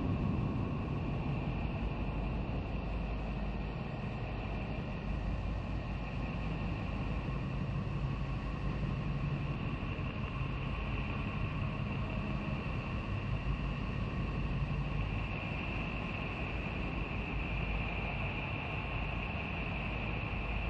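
Voyager space-sound recording presented as the sound of Neptune, meaning its radio and plasma emissions converted to audio. It is a steady low rumbling drone with a hissing wash and a faint high steady hum, which grows slightly louder after about fifteen seconds.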